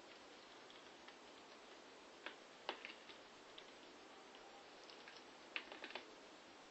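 Faint clicks and taps in small clusters, a few about two to three seconds in and another group at five and a half to six seconds: ducklings' bills pecking at cat food in a foil tray.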